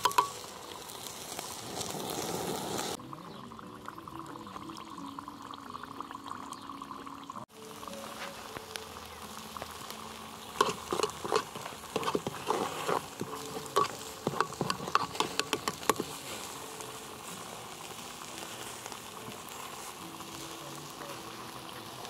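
Red pepper and oil sauce sizzling and bubbling in a small copper cezve set on wood embers. About halfway through, a metal spoon stirs it, clinking repeatedly against the pot for several seconds.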